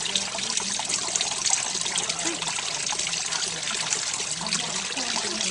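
Water fountain running, a steady trickling and splashing of falling water.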